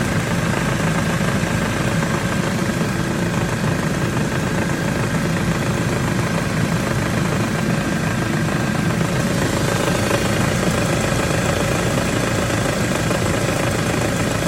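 Ford Mondeo Mk4 2.3 four-cylinder engine idling steadily with the air conditioning on, carrying the rattle that comes in as soon as the AC switches on. The owner is certain the rattle does not come from the AC compressor.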